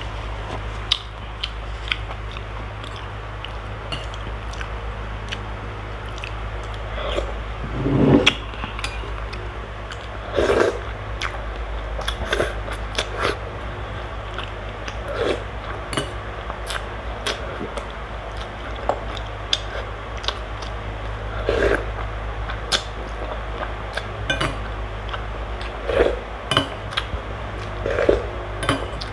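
Close-up eating sounds: chewing and slurping spoonfuls of noodle soup, with a metal spoon clicking against a glass bowl many times. A steady low hum runs underneath.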